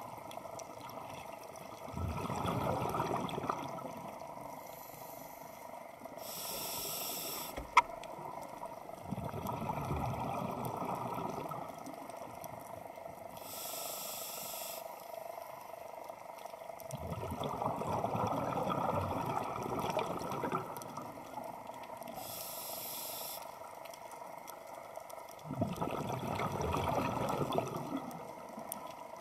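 A scuba diver breathing through a regulator, in a slow cycle about every eight seconds. Each breath is a short hissing inhalation followed by a longer bubbling rush of exhaled bubbles. One sharp click comes about a quarter of the way in.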